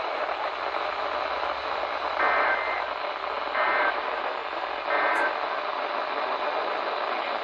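Weather radio receiver hissing with static, broken by three short bursts of Emergency Alert System (SAME) digital data tones a little over a second apart: the coded burst that marks an alert or test.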